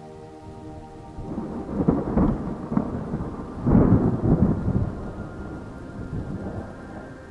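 Thunder rumbling in two rolling peals, about two and four seconds in, over a steady rain-like hiss.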